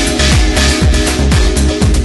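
Electronic dance-pop song with a steady kick-drum beat about twice a second, in a stretch without singing.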